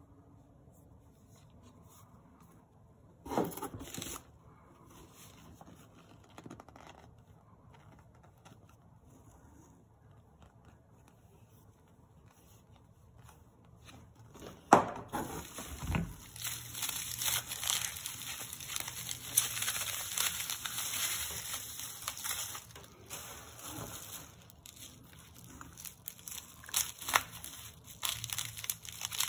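Jars being handled in a cardboard box, with a brief knock about three seconds in; from about halfway, bubble wrap crinkling and tearing without a break as a wrapped item is unwrapped, with scissors cutting it near the end.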